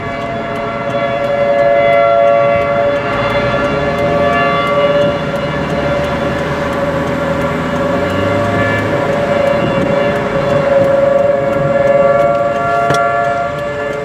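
Outdoor tornado warning sirens (Whelen electronic sirens and a Federal Signal 3T22) sounding a steady alert tone, several sirens' tones overlapping and swelling and fading as they rotate. Heard from inside a moving car, with engine and road noise underneath.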